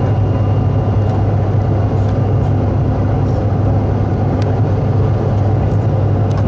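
Steady low drone of a jet airliner's cabin, an even hum that does not change, with a few faint clicks.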